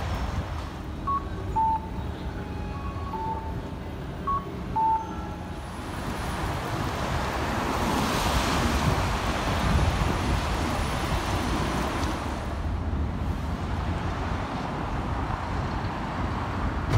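Road traffic passing on a city street, with wind rumble on the microphone of a moving bicycle. A few short electronic beeps at two alternating pitches sound in the first five seconds.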